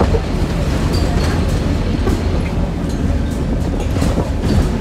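Cabin noise inside a moving Scania OmniCity single-deck bus: a steady low rumble from the engine and running gear, with scattered clicks and rattles from the interior fittings.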